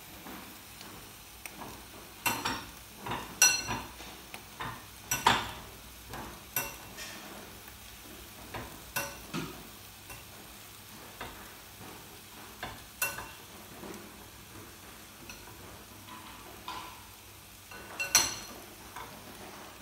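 Shrimp sizzling in a closed electric contact grill: a steady low hiss broken by irregular sharp pops and crackles, the loudest a few seconds in and again near the end.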